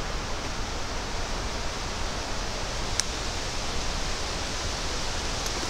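Steady wind rushing through the forest trees, with one sharp click about three seconds in as a double-barrelled shotgun is put together, and a fainter click near the end.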